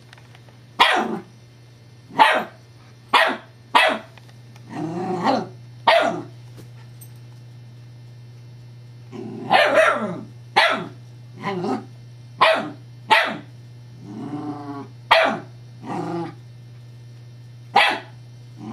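Scottish terrier puppy barking at a toy pacifier: about fifteen sharp barks at irregular intervals, a few of them longer and drawn out.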